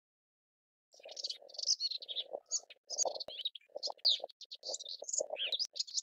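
Melodious warbler singing: a fast, run-on stream of varied chattering and twittering notes that begins about a second in, with a lower, choppy sound running beneath the song.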